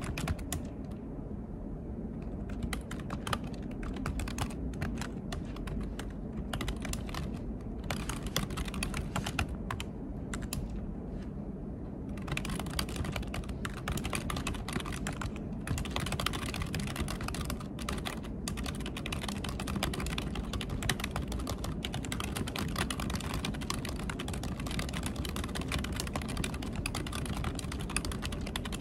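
Continuous typing on a computer keyboard: a rapid, uneven run of key clicks over a low steady room hum, busier from about halfway through.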